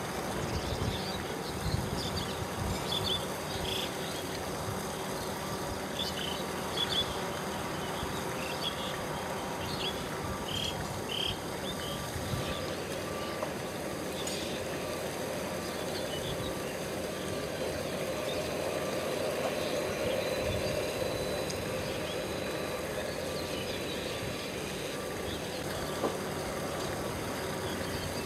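Boeing 787 jet engines at taxi idle, a steady hum that swells a little past the middle as the airliner rolls toward and past the camera. Short high chirps sound over it through the first half.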